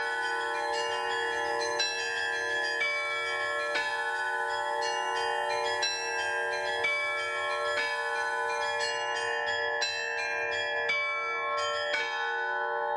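Several bronze church bells rung together in the Russian manner: heavier strokes about once a second over long, overlapping ringing tones, with smaller bells sounding in between.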